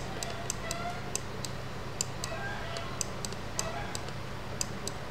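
Sharp, irregular clicks of a stylus tapping a tablet screen during handwriting, about two or three a second, over a low steady hum.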